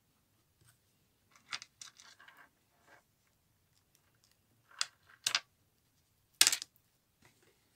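Silver charms and a snake-chain charm bracelet clinking and rattling as they are handled, in a few short bursts; the loudest clink comes near the end.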